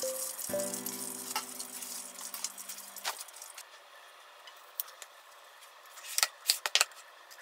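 Hot oil sizzling in a frying pan for the first few seconds, under a few held notes of background music. Then a quieter stretch, and a few light knocks and clicks about six seconds in as the wooden bento box is handled on the counter.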